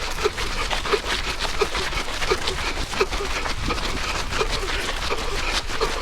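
A runner's heavy, wheezing breathing while running hard, with a short whistling note on each breath, about three every two seconds. It is a wheeze from the lungs under exertion.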